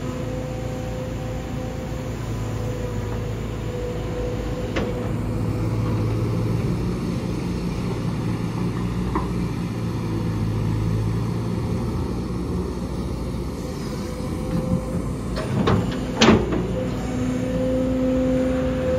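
Kobelco crawler excavator running steadily with a constant whine as its steel bucket digs into red, stony soil. A burst of sharp knocks and scrapes comes near the end, as the bucket strikes stones.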